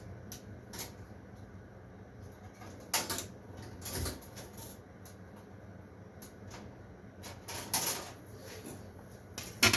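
Scattered clicks and knocks of a metal LED light fixture being handled and taken apart by hand, as its feed wires are popped out of their connectors.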